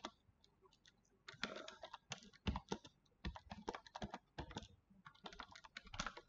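Typing on a computer keyboard: irregular key clicks, a few scattered at first, then a quick run of keystrokes from a little over a second in.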